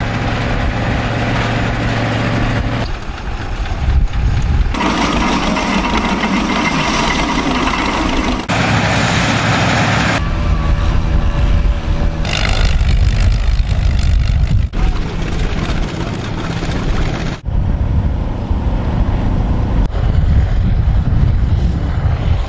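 Antique farm tractor and combine engines running in a string of short field recordings, the sound changing abruptly every two to three seconds at each cut. The tractors are working under load, pulling plows.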